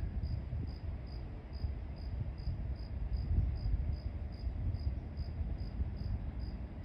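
Crickets chirping steadily, short high-pitched chirps evenly spaced a few times a second, over a low rumble.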